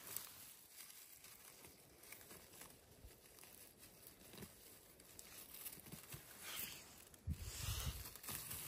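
Faint rustling and crinkling from someone moving about on the forest floor, with a louder low thump and rustle about seven seconds in.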